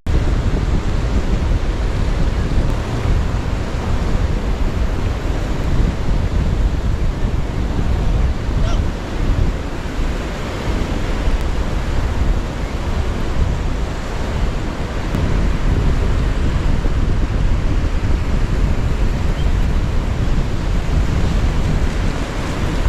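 Gulf surf washing steadily onto the beach, with wind rumbling on the microphone.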